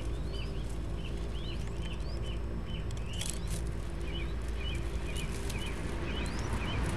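Small birds chirping in the background: quick rising whistles and short paired chirps, several a second, over a steady low hum. About three seconds in, a brief rustle of straw and feathers as an adult mourning dove steps down into the nest.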